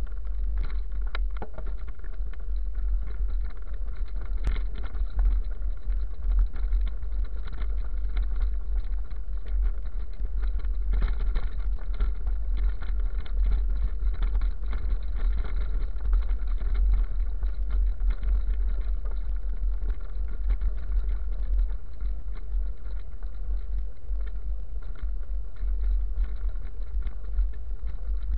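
Steady low rumble of a vehicle riding over a gravel dirt road, with wind buffeting the microphone and no change in pace or pitch.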